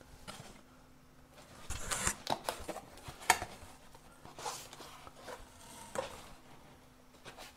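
Cardboard box flaps being opened and a boxed soldering station lifted out of its foam insert: irregular rustling and scraping of cardboard and foam, with a sharp tap about three seconds in.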